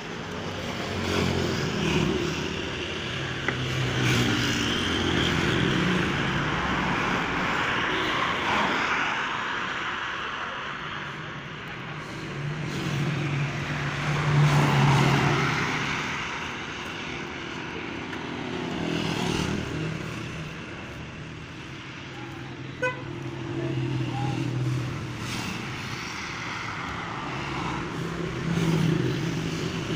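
Road traffic: motor vehicle engines running and passing, swelling loudest about halfway through, with a short sharp tap about three-quarters of the way through.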